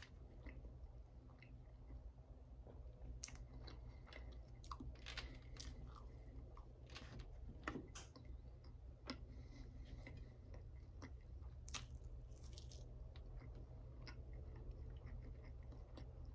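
A person chewing and crunching toast and hash browns close to the microphone, with many short clicks and crackles, over a low steady hum.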